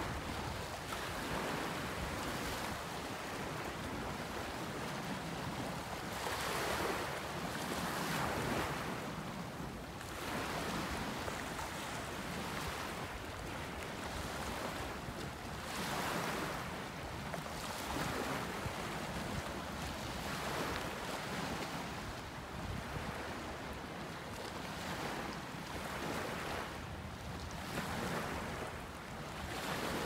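Small waves washing against a rocky shoreline, surging every few seconds, with wind noise on the microphone.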